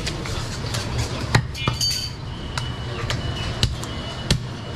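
A heavy butcher's knife chopping goat meat on a wooden log chopping block: about five sharp chops, unevenly spaced, over a steady low hum.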